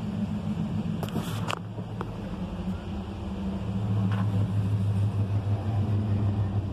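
Motor vehicle engine running with a steady low hum that grows louder about three and a half seconds in, with a couple of brief knocks about a second in.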